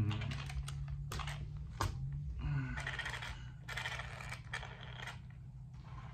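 Sharp clicks and short bursts of light rattling as the plastic chassis and parts of a radio-controlled truck are handled, over a steady low hum.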